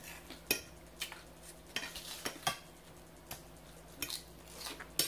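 Eating utensil clicking and scraping against a dish: a string of sharp, irregular clicks, about two a second.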